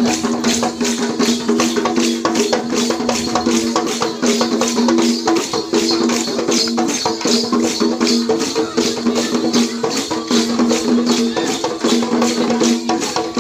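Dance music: a fast, steady percussion beat over a few held droning notes.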